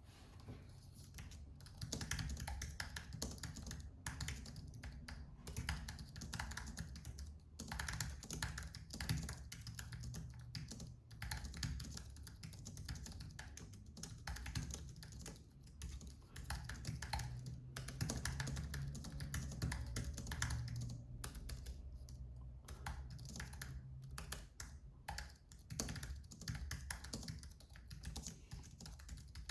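Typing on an Apple Magic Keyboard with Numeric Keypad: its low-profile scissor-switch keys clicking in quick, uneven runs of keystrokes.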